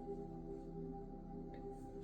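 Singing bowls ringing in a steady, layered drone of several overlapping tones that swell and fade gently.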